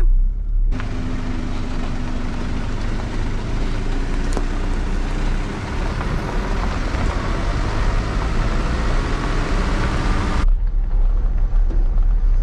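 Ute driving along a dirt bush track: a low engine and road rumble heard inside the cab, overlaid from about a second in until near the end by a loud steady rush of wind and tyre noise.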